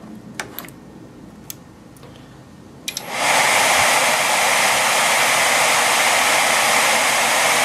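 Power cord clicking into a Blue Coat ProxySG 810 server, then about three seconds in its Sanyo Denki blower fans and power-supply fans spin up quickly to a loud, steady rush that holds.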